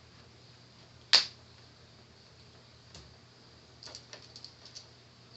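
Small clicks and taps of a screw and small Phillips screwdriver against a laptop's plastic case: one sharp click about a second in, a fainter click about three seconds in, then a quick run of light ticks.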